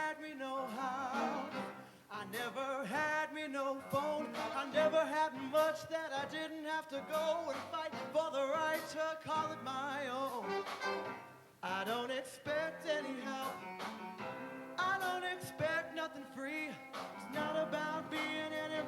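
Show choir singing with a live band, the voices wavering over the accompaniment, with two brief breaks in the music.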